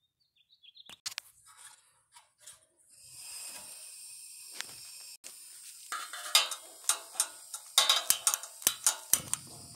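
A propane camp burner on a small propane cylinder, its gas hissing steadily from about three seconds in. Over the hiss come many sharp clicks and knocks, and a low rumble starts near the end.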